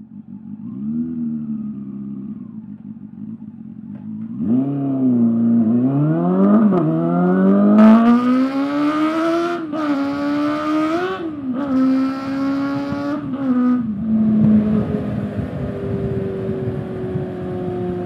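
Honda CB400SF inline-four with a Yoshimura slip-on exhaust pulling away hard from low revs and revving high through the gears. Its note climbs steeply and drops at each of several upshifts, with a harsher rasp at the top of the revs. It settles to a steadier, slowly falling note near the end.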